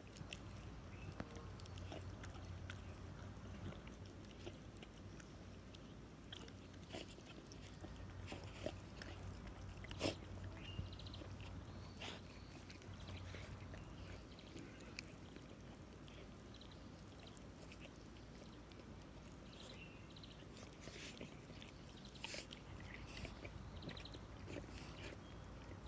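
Faint sounds of two dogs at play, a bull terrier and a Cane Corso: scattered clicks and knocks with a few short high-pitched squeaks or whines, over a low steady hum.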